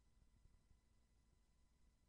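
Near silence: only a faint low rumble and a few thin, steady electronic tones.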